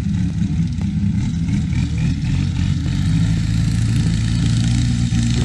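Engine of a Thai longtail racing boat running steadily under way, its pitch slowly climbing as the boat picks up speed, with water rushing from the wake.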